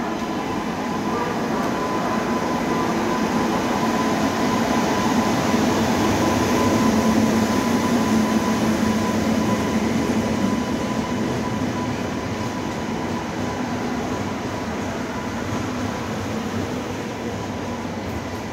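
Passenger express train rolling slowly alongside the platform: a steady rumble of wheels and running gear as the locomotive, then a power car and LHB coaches go by. It grows louder to a peak about midway, then eases off, with a thin steady whine running under it.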